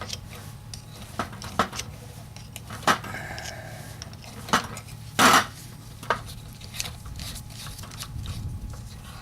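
Metal turbo pedestal parts clinking and clanking as they are handled and set down on a workbench: a series of sharp knocks, the loudest a little over five seconds in.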